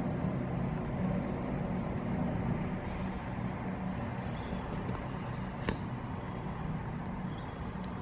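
Steady low hum of distant city traffic, with one short click about six seconds in.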